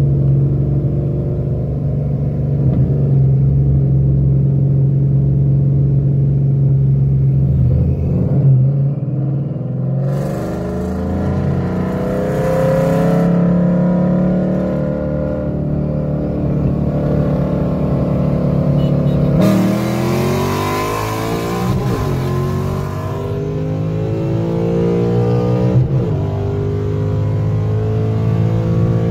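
Ford Mustang S197 5.0 V8 heard from inside its cabin, running steadily at cruise and then accelerating hard, its revs rising through the gears. A gear change comes about two-thirds of the way in, with a few seconds of loud rushing noise.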